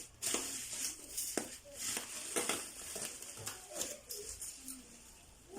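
Packaging being handled and unpacked: irregular rustling, crinkling and light clicks and knocks.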